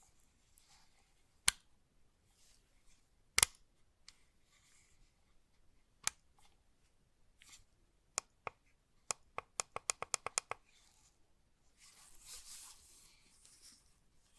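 Sharp clicks from handling a Razer Naga Pro gaming mouse: three single clicks a couple of seconds apart, then a quick run of about a dozen, about eight a second. A soft rustle follows near the end.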